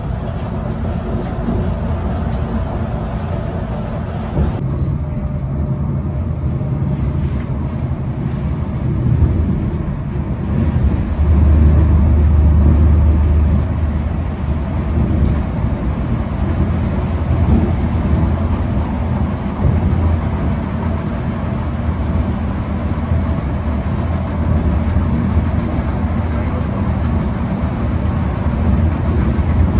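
Volvo 9600 buses running at highway speed: a steady low rumble of engine and tyres on the road. About four and a half seconds in the sound turns duller and lower, and the low hum swells for a few seconds around the middle.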